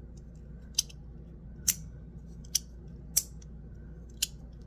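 FidgetThings Tab Chonky Boi magnetic fidget slider, held by N52 magnets, being slid back and forth so its plates snap into their click positions: five sharp clicks spaced well under a second apart, with a few faint ticks between them.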